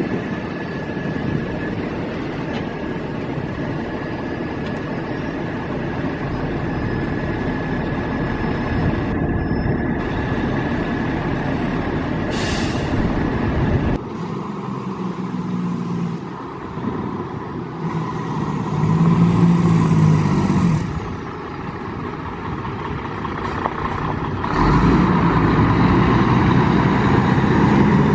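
Fire truck diesel engines running in a continuous low rumble. The sound changes abruptly about halfway through, and the engine note then swells twice in the second half.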